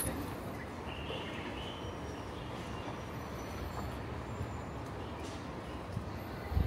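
Steady low street rumble heard from a moving bicycle, with two brief knocks near the end.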